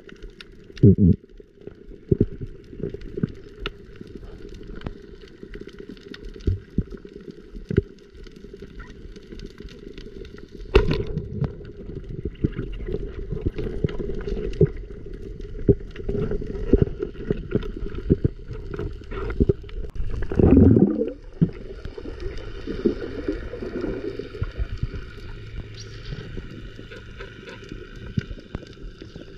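Muffled underwater sound from an action camera in a waterproof housing during a breath-hold dive: water moving and gurgling, with many small knocks and clicks and a louder rushing gurgle about twenty seconds in.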